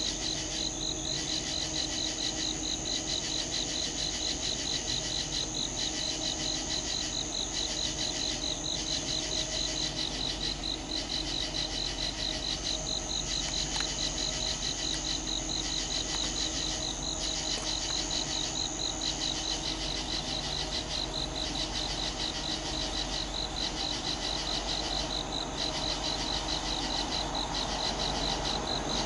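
Night insects, crickets among them, calling steadily in a dense chorus: a fast pulsing trill, a higher steady trill that breaks off and starts again, and a call repeating about every second and a half. Near the end a low rumble of an approaching train begins to rise underneath.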